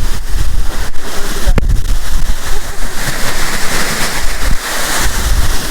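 Waterfall at close range: a loud, even rush of falling water and spray, with wind gusting on the microphone as a rough, uneven low rumble.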